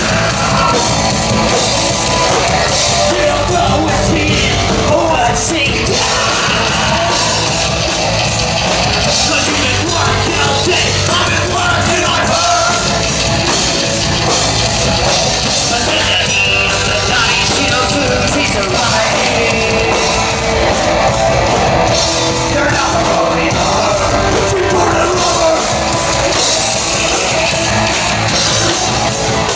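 A loud live punk/metal band playing, with yelled singing over it.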